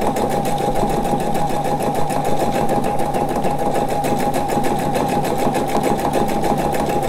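Pfaff Expression 710 sewing machine running steadily as it stitches a programmed decorative lettering pattern with its 2A foot: a fast, even patter of needle strokes over a steady motor tone.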